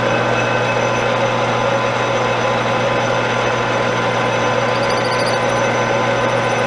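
Metal lathe running steadily, a constant motor and gear hum with several steady tones, as the boring tool is brought up to touch off inside a brass bore.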